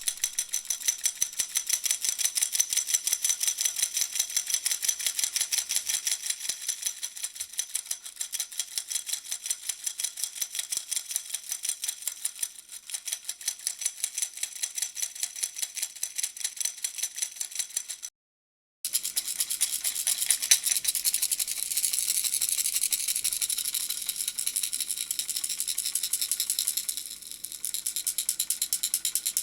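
A puppy-shaped plastic baby rattle shaken steadily in quick rhythmic strokes, giving a continuous bright rattling. The rattling stops for a moment about eighteen seconds in, then carries on.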